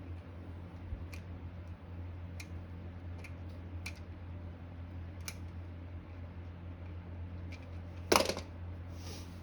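Light scattered clicks and taps of hand tools and metal parts while a stubborn part is worked loose on an old electric motor, with one louder clunk about eight seconds in, over a steady low hum.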